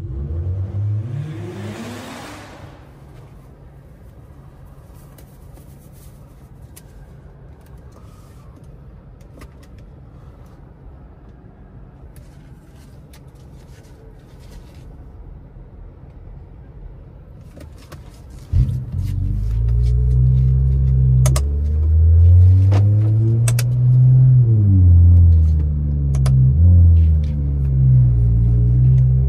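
Turbocharged inline-six engine of a tuned BMW X5 xDrive45e. It gives a short rising rev at the start, then a low steady hum for about fifteen seconds. About 18 seconds in it comes in hard, its pitch climbing and dropping several times as it accelerates, with a few sharp cracks on top.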